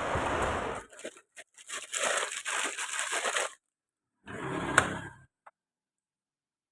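Tearing, crinkling noise in three bursts, with a sharp click during the last one.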